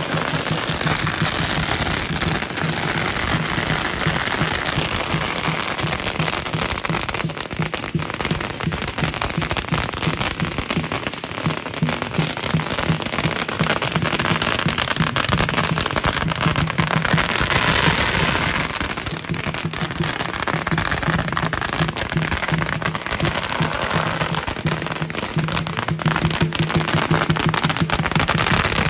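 Strings of firecrackers going off in a continuous rapid crackle of pops, louder for a moment about two-thirds of the way through.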